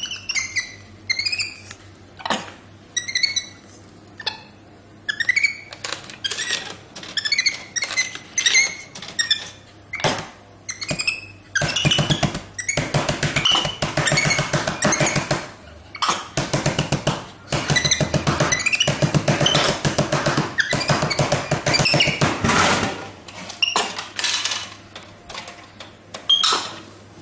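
Capuchin monkey making repeated short, high squeaks and chirps that glide in pitch, with a long stretch of louder, rapid harsh calling in the middle.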